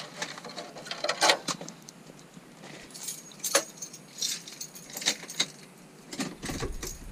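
Irregular clicks, taps and light jingling rattles from dashboard trim parts and small hardware being handled and fitted.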